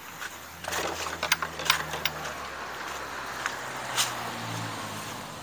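A car driving past on the road, its low engine hum swelling a little about four seconds in, with several sharp clicks and knocks in the first two seconds.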